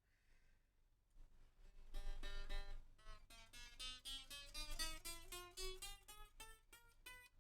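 Unplugged electric guitar being played. About two seconds in, a chord is strummed, followed by a quick run of single plucked notes going up and down, testing the freshly lowered string action.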